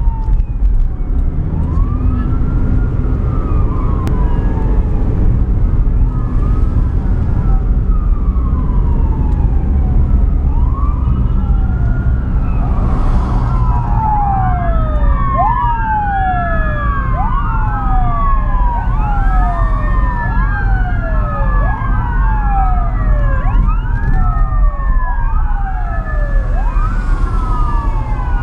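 Emergency-vehicle sirens wailing, each call rising and then falling in pitch, heard from inside a moving car over its steady low road and engine rumble. About halfway through, several sirens overlap and grow louder.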